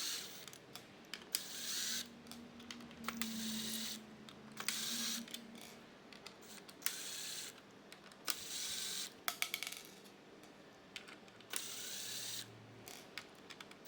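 Screws being backed out of the plastic top plate of a Zodiac MX8 pool cleaner with a screwdriver. There are about seven short bursts of turning noise with sharp clicks between them.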